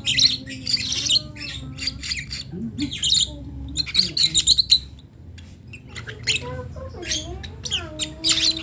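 Young lovebird chick squawking in irregular runs of short, harsh, high calls with brief pauses: a fledgling practising its first calls.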